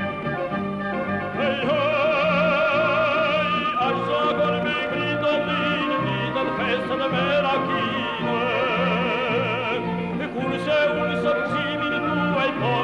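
A male singer holds long, wavering melismatic notes with heavy vibrato, backed by an orchestra whose bass keeps a steady pulse.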